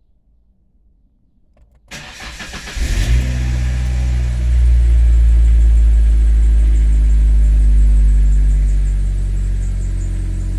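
1998 Ford Ranger engine started: the starter cranks briefly about two seconds in, the engine catches and settles into steady running with its newly fitted aftermarket high-flow air intake.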